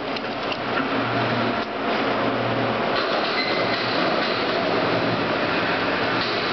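Wire re-spooling machine running, zinc wire winding onto a spool through a roller straightener: a steady mechanical rushing clatter, with a low hum that comes and goes in the first few seconds.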